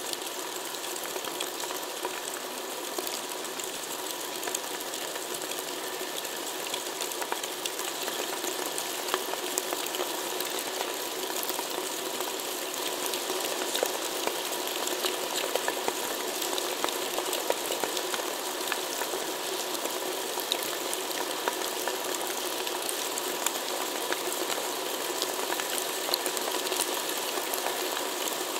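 Sound installation of 51 prepared DC motors jerking ropes so that hanging 25 cm cardboard sticks tap and scrape on the floor: a dense, steady patter of many small clicks, under a faint steady hum.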